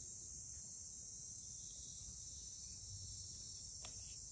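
Insects trilling steadily in a high-pitched chorus, with a faint click near the end.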